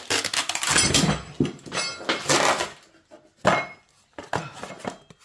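Metal radiator brackets and fittings clinking and knocking together as they are taken out of their packaging, amid the rustle of the packing.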